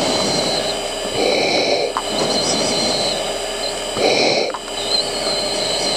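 F-16 cockpit noise over the intercom: a steady rush of engine and air-conditioning airflow, with two breaths into a mask microphone, one about a second in and one about four seconds in.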